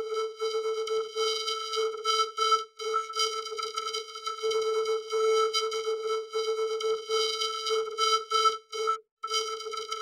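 Vocoded audio effect: a droning chord of steady electronic tones that stutters and flickers in an irregular rhythm, cutting out for a moment near the end.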